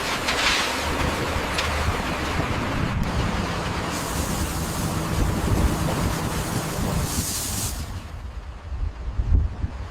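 Heavy construction machinery running: a steady low engine hum under a dense rushing noise. A brief high hiss comes about seven seconds in, and the sound thins out near the end.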